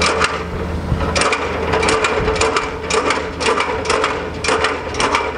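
Fly section of a 24-foot extension ladder being retracted, sliding down the bed section in a rapid irregular series of clicks and clacks as the rung locks ride over the rungs.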